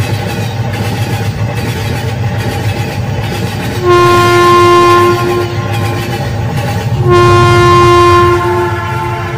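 Battery-powered toy steam train running on its plastic track with a steady motor hum, its electronic whistle sounding twice in the second half, each blast steady and about a second and a half long.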